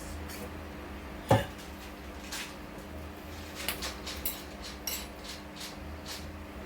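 Kitchen clatter of pots and utensils: one sharp loud knock about a second in, then several lighter clinks and taps, over a steady low hum.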